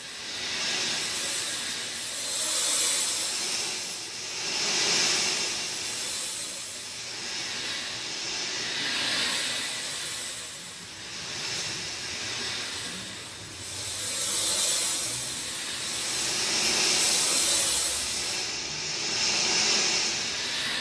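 Rain falling: a dense, steady hiss that swells and eases in waves every two to three seconds.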